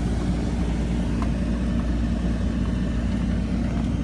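Car engine and tyres, heard from inside the cabin while driving: a steady low rumble.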